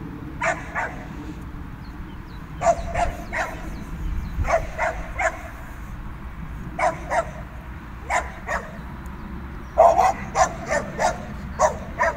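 A dog barking in short, sharp barks that come in runs of two to four, about twenty barks in all, the loudest run coming near the end.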